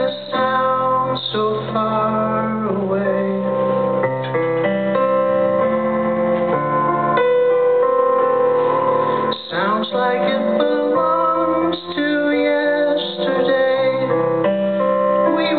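A live band plays a song on keyboards and electric bass, with sustained, overlapping keyboard notes and some sliding pitches.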